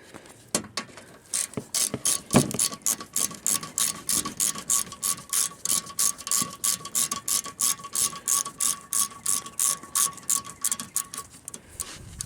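Hand socket ratchet clicking fast and evenly as it spins out a loose 10 mm fastener holding the underbody splash shield, with a faint metallic ring under the clicks; the clicking starts about a second in and stops near the end.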